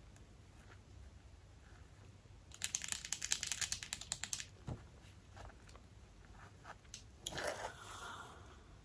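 A rapid run of light clicks lasting about two seconds, then a few scattered clicks: small snap hair clips being handled and tapped with long acrylic nails.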